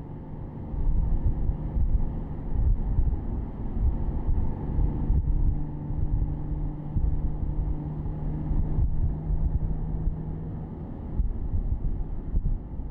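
Porsche Boxster S (987.2) flat-six engine running at a steady cruise, heard from the open-top cabin with wind on the microphone and road rumble. A steady engine drone holds from about four seconds in until a little before the end.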